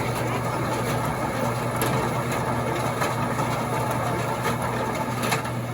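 Christmas tree baling machine running with a steady engine hum while it wraps a tree in netting, with a few faint clicks.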